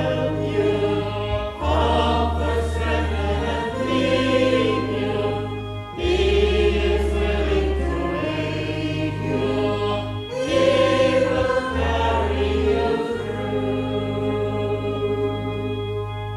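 A choir singing the closing refrain of a hymn over long held bass notes.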